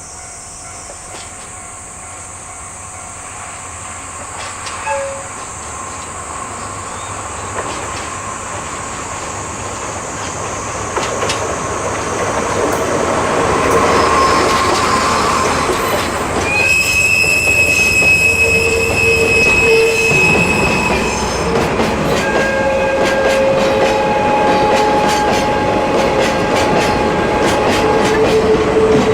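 Freight train on the Seino Railway drawing closer and passing, growing louder through the first half. About halfway through, the wheels give a steady high squeal for several seconds, and the wheels clatter over the rail joints near the end.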